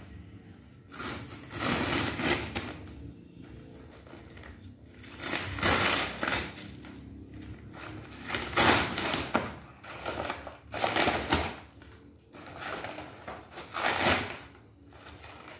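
A courier mailer and its white packing wrap being torn open and crumpled by hand: repeated bursts of tearing and crinkling, each lasting about a second, with short quieter gaps between.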